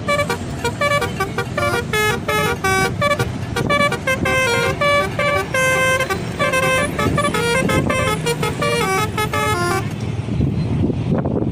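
Bus 'telolet' musical air horn playing a quick tune of short tooted notes that change pitch, over a low rumble. The tune stops about ten seconds in.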